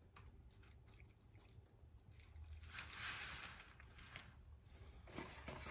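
Near silence with a few faint small clicks as N-scale Kato Bethgon Coalporter coal cars are nudged along the track by hand, their plastic couplers knocking together, over a low steady room hum.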